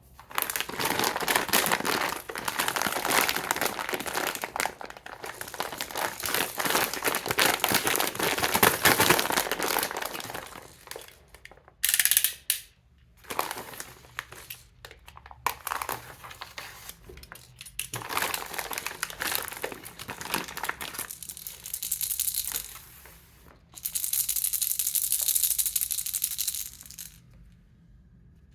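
Baby rattle shaken, a dense run of fast rattling that goes on for about ten seconds, then shorter shakes broken by brief pauses.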